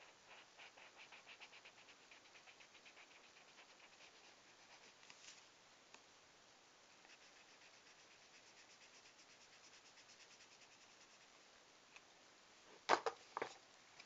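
Marker scribbling quickly back and forth on paper, colouring in with rapid even strokes, faint, stopping about five seconds in and then resuming more faintly. Near the end come two sharp knocks.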